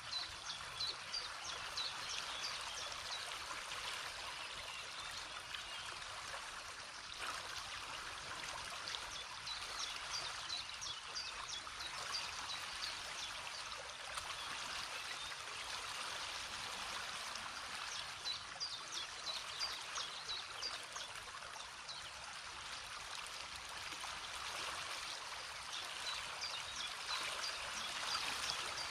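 A river or mountain stream rushing steadily, with a songbird singing bursts of short, high chirps every several seconds over it.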